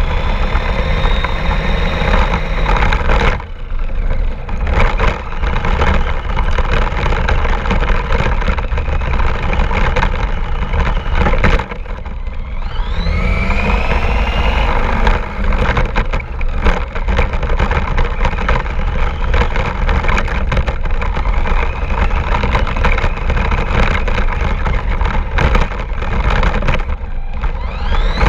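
Radio-controlled car's motor running hard, its whine rising in pitch several times as it speeds up, over a heavy steady rumble with scattered knocks and bumps.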